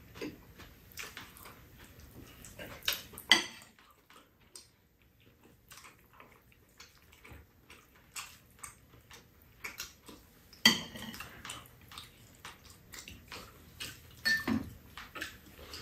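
Metal spoons and chopsticks clinking against bowls and a metal serving tray as people eat, scattered light clicks with louder clinks about three seconds in and again near eleven seconds.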